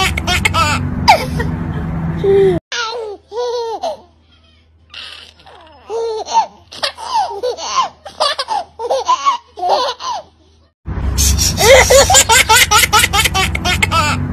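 Babies laughing. A baby's quick run of giggling laughter breaks off about two and a half seconds in. Two infants follow, laughing and squealing in short rising-and-falling calls with brief pauses, and the first baby's rapid laughter comes back near the end.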